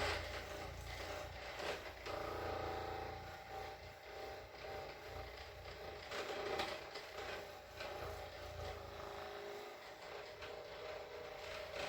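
Scattered soft creaks and rustles of hands working on a patient lying on a chiropractic treatment table, over a faint low rumble that fades after the first few seconds.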